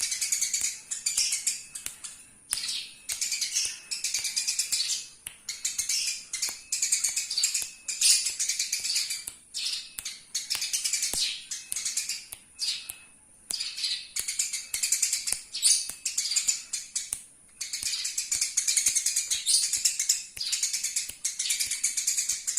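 Eurasian tree sparrows chirping and chattering in fast, dense runs of a second or two, broken by short pauses.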